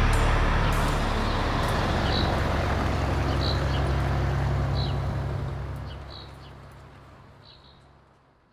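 Amphibious hovercraft's engine and rear air propeller running with a steady low hum, fading out over the last few seconds. A bird chirps about once a second above it.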